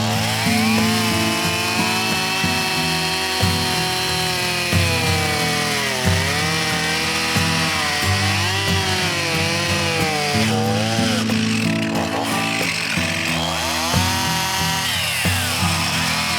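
Stihl MS362 two-stroke chainsaw cutting through a log at high revs. Its pitch sags and recovers several times as the chain bites into the wood, and the saw runs strongly on newly replaced fuel lines. Background music plays along with it.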